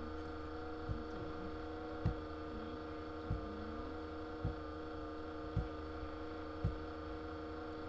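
Steady electrical mains hum with many overtones, broken by six soft low thumps spaced about a second apart.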